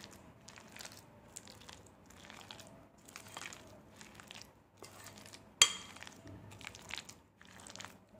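Spoon stirring chopped citron pieces and chilli powder in a glass bowl: faint, irregular wet squelching and scraping, with one sharp clink of the spoon against the glass about five and a half seconds in.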